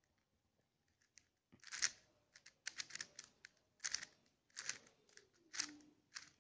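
Plastic twisty puzzle, the Z-Vulcano, being turned by hand: its pieces clack and click in a series of short rattling turns, starting about a second and a half in.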